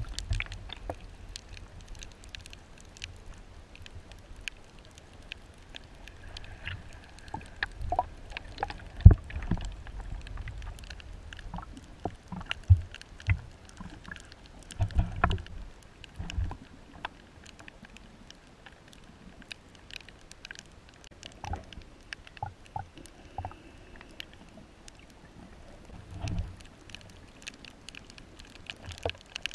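Underwater reef ambience: a steady crackle of scattered sharp clicks, with a few low thumps and rumbles of moving water, the strongest about nine seconds in.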